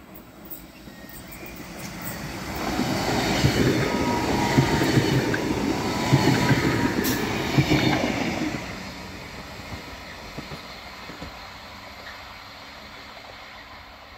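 Slovenian Railways Stadler electric multiple unit passing close by. The noise of its wheels on the rails builds over the first few seconds, stays loud for about five seconds, then falls away sharply. After that comes a quieter, steady sound of a train approaching from a distance.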